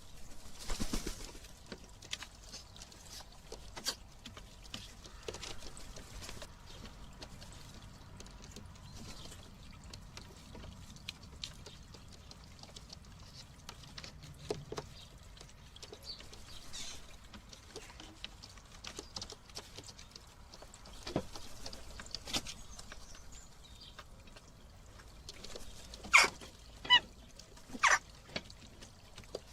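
Hedgehog eating mealworms at a feeder: faint rustling and small crunching clicks. Near the end come three short, loud, sharp sounds about a second apart.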